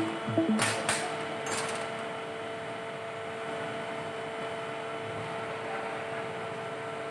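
A few short clatters about half a second and a second and a half in, from steel screwdrivers and a plastic contactor housing handled on a bench, then a steady faint hum.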